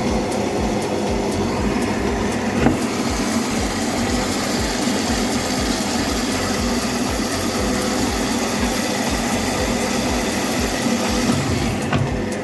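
Repaired washing machine running through its wash cycle: a steady mechanical hum with an irregular low thumping, and one sharp knock a few seconds in.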